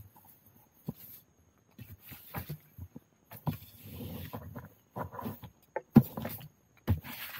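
Long-handled digging spade chopping into the base of a bamboo shoot in soil and leaf litter: a string of hard strokes, the loudest about six seconds in, with scraping and rustling between them.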